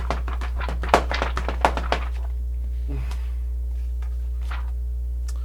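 A picture book being shaken in the hands, giving a quick run of knocks and thumps for about two seconds, then a few scattered knocks. A steady low electrical hum runs underneath.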